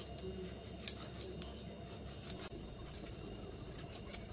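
Light, scattered clicks and clinks of a knife against a glass plate as raw chicken drumsticks are scored. The sharpest clicks come right at the start and about a second in, with a few more a little past halfway.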